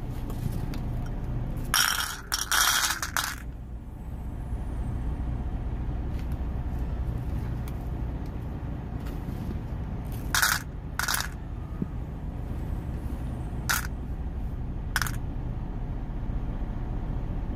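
Metal rhinestone charm beads clinking and rattling against each other in a clear plastic container: a rattle about two seconds in, then four short clinks later on. Under it runs the steady low hum of an idling truck engine.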